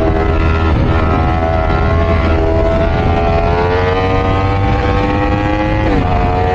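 Yamaha R1's crossplane inline-four engine pulling steadily, its pitch climbing slowly under throttle. About six seconds in the pitch dips briefly and then climbs again. Wind rushes steadily over the microphone underneath.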